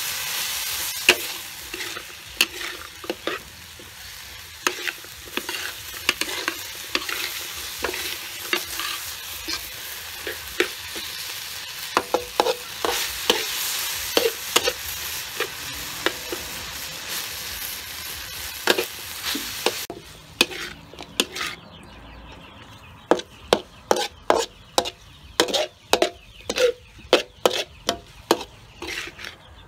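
Chicken pieces and sliced ginger sizzling in a hot wok while a spatula stirs and scrapes them, with frequent clinks against the pan. About twenty seconds in, the sizzling drops away suddenly and the spatula strokes go on alone in a quicker, more even run.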